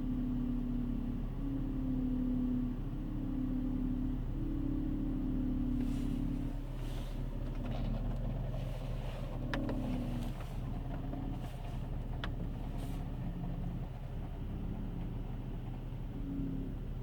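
BMW E46 320Ci's M54B22 2.2-litre straight-six running steadily, overlaid with a strange droning tone that comes and goes in pulses of about a second, strong at first and weaker in the second half. A couple of sharp ticks come about halfway through.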